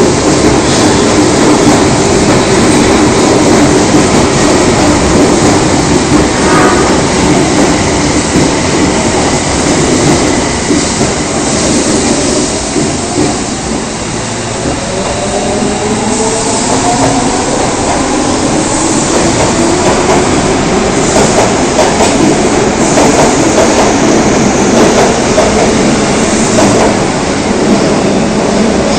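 Osaka subway train 22962F on the Tanimachi Line running loudly through the station with clattering wheels. From about twelve seconds in, the motor whine rises in pitch as the train picks up speed.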